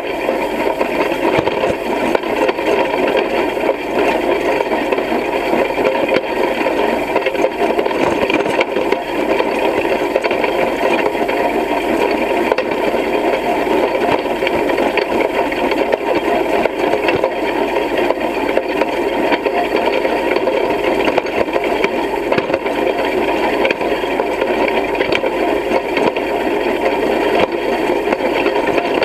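Hay rake running through cut hay: its tine bars and frame rattle and clatter steadily as they sweep the hay, heard close up from the rake itself.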